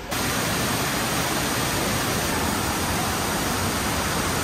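Steady, even rushing of falling water from a waterfall, cutting in suddenly right at the start.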